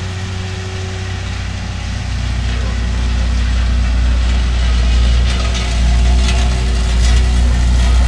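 Ingersoll Rand vibratory road roller running as it works along a gravel driveway: a steady low engine rumble that grows louder about two seconds in.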